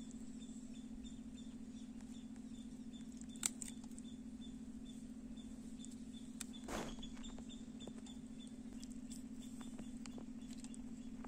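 Quiet outdoor background: a steady low hum with faint, repeated high chirps. A single soft click comes about three and a half seconds in, and a brief rustle near seven seconds.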